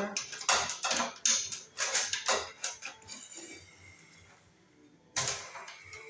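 Clicking and rattling of stiff wires, plastic wire nuts and the baseboard heater's sheet-metal wiring box as the connections are pushed back in, busiest in the first three seconds; a single sharp knock about five seconds in.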